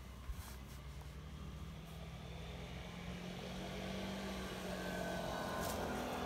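A motor vehicle's engine hums steadily and grows gradually louder.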